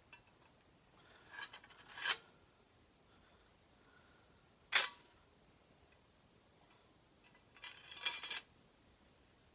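Handling noises from fitting and measuring sword parts. A scrape builds to a sharp click about two seconds in, a single sharp click comes near the middle, and there is a short rustling scrape near the end.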